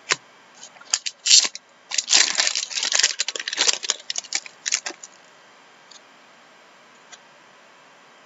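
Packaging crinkling and tearing as hockey cards are unwrapped and handled: a sharp click at the start, scattered crackles, then a dense run of crinkling for about three seconds that stops about five seconds in.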